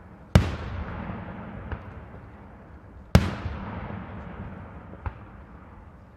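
Daytime aerial firework shells bursting with loud bangs: two big reports about three seconds apart, each trailing off in a long rumbling echo, with fainter pops between them.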